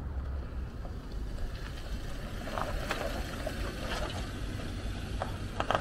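Steady low outdoor rumble, with a few short clicks about halfway through and near the end.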